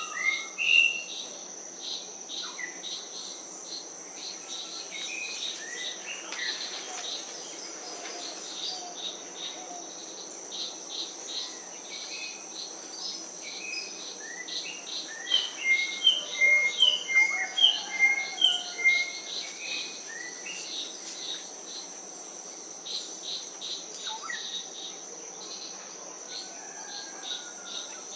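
Tropical wildlife ambience: a steady high-pitched insect drone under scattered bird calls. In the middle comes a run of about eight loud, evenly repeated bird notes, roughly two a second.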